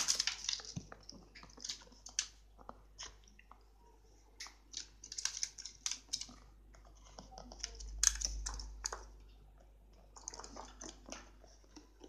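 Budgerigar cracking and husking seeds at its seed dish with its beak: irregular quick clicks and crackles.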